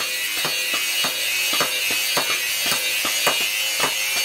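Hammer tapping on a block of wood in a quick, even rhythm, about three to four blows a second, over a steady high-pitched hiss.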